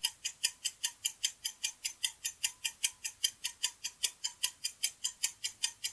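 Steady, rapid clock ticking, about five ticks a second: a countdown timer sound effect.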